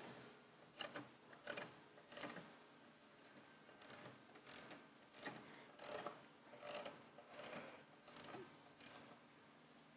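Faint ratcheting clicks from a motorcycle lift being lowered, about one every 0.7 s with a short pause near the middle, as the bike's weight settles onto the springer front end.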